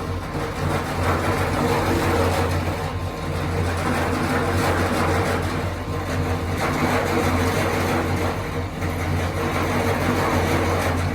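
An engine or motor running steadily with a low hum and a noisy rattle over it, its level dipping slightly a few times.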